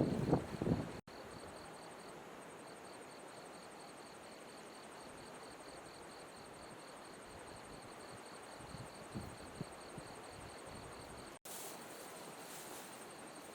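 Insects, crickets by their sound, chirping in a fast steady pulse over an even background hiss. It is broken by a burst of low rumbling handling noise in the first second and a couple of soft bumps later on.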